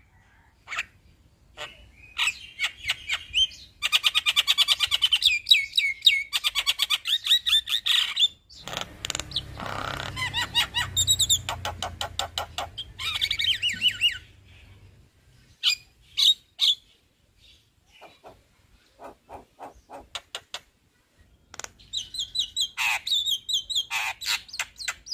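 Male Javan myna singing a long, rapid rolling chatter of clicks and trills, with a harsher, grating stretch in the middle and scattered single notes between the rolls.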